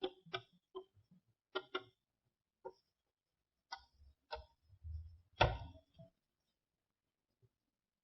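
Chalk tapping on a blackboard while characters are written: about ten sharp, irregular taps, the loudest about five and a half seconds in, with a dull low knock under the taps between about four and five and a half seconds.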